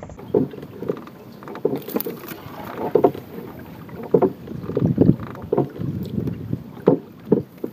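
Wooden country boat being rowed: irregular oar strokes splashing and knocking on the hull about once a second.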